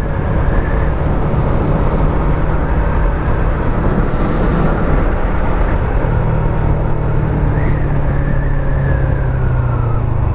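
Yamaha MT-03's 321 cc parallel-twin engine running steadily at riding speed, mixed with wind and road noise on the bike-mounted microphone.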